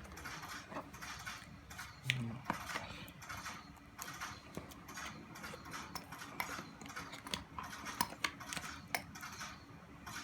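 Phone box and accessories being handled during an unboxing: scattered light clicks, taps and rustles of packaging, with one louder knock about two seconds in.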